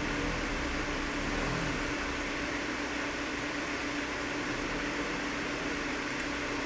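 Desktop PC's fans running with a steady whir and a low hum. The machine is powered on but not booting.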